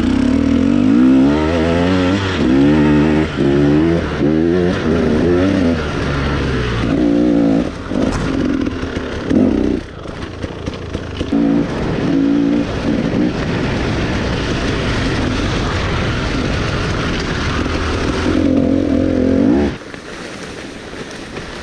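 KTM EXC 250 enduro dirt bike engine revving up and down again and again as it is ridden, steadier for a few seconds, then a last rev before the level drops off sharply near the end.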